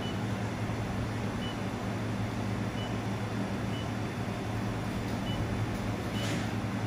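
Steady hum and fan noise of a running fiber laser welding machine and its water chiller, with six short high beeps from its touchscreen control panel as settings are tapped in.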